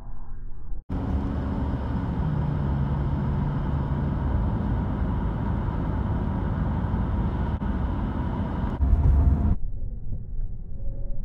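Road and engine noise of a moving car, heard from the car itself: a steady rumble with tyre and wind hiss. It cuts in abruptly about a second in, swells louder just before the end and then cuts off.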